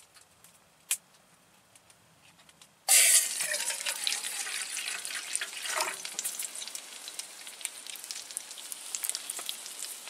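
Burger patties sizzling and frying in a cast iron pan on a woodstove: a crackling hiss full of small pops. It starts suddenly about three seconds in, after near silence broken by a single click.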